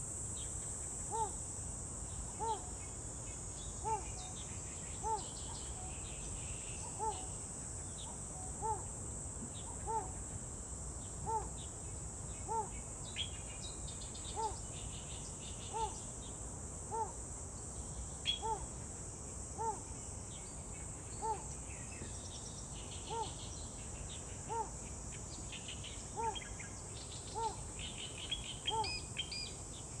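A steady high drone of insects, with a short low call repeated about every second and a half and scattered bird chirps, which grow busier in the second half.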